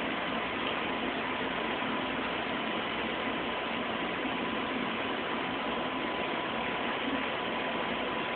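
Steady, even hiss-like noise with a faint thin steady tone underneath it.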